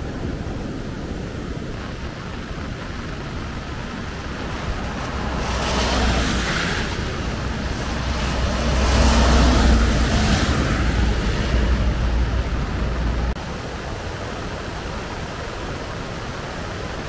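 Steady rush of a flooded, fast-flowing river. For several seconds in the middle a heavy truck with a trailer passes on a wet road, its tyres hissing through the spray over a deep engine rumble. This cuts off suddenly about two-thirds of the way through, leaving the river's rush again.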